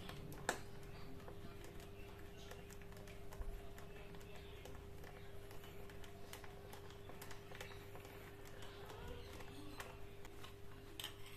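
Small faint clicks and scrapes of a screwdriver turning the terminal screws of a 3-pin rocker switch, with one sharper click about half a second in. A faint steady hum runs underneath.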